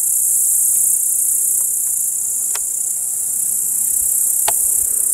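A dense, steady, high-pitched chorus of grassland insects stridulating, the grasshopper and cricket buzz of a summer meadow. Two faint short clicks are heard, about halfway through and near the end.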